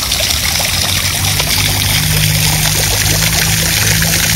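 Water from a tiered pedestal fountain splashing and trickling steadily into its shallow pebble basin. A low steady hum joins about a second and a half in.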